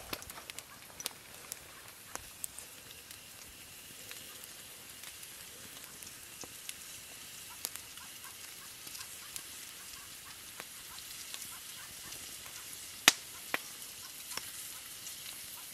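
Wood campfire crackling, with scattered sharp pops and one loud pop about 13 seconds in, over a faint steady sizzle of meat frying in an aluminum mess-kit pan.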